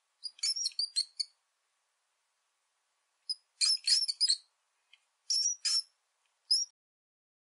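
Rat squeaking: short, high-pitched squeaks in quick clusters, three bursts and a last single squeak, with silence between.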